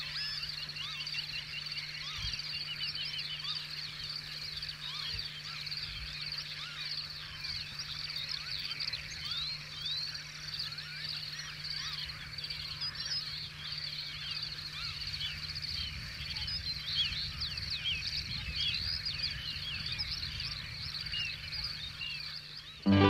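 Wetland ambience: a dense, unbroken chorus of many overlapping short chirping calls, with a steady low hum underneath and a few soft low bumps. Acoustic guitar music cuts in just before the end.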